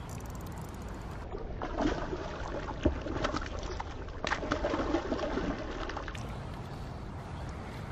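Water splashing and sloshing beside a fishing boat on a river, with a few sharper splashes in the middle, over a steady low rumble.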